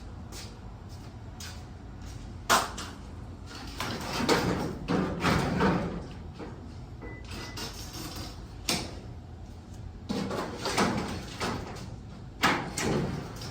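A sectional garage door knocked out of its tracks being handled: sharp metal bangs three times, with longer stretches of rattling and scraping of the panels and rollers between them.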